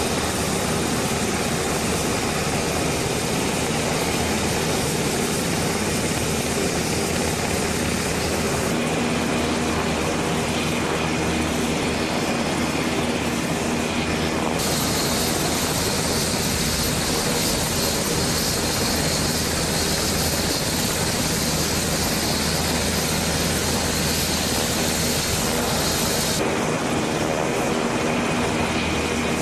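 HH-60 Pave Hawk helicopter's twin turboshaft engines and rotor running steadily, with a high hissing whine that grows louder about halfway through and eases off a few seconds before the end.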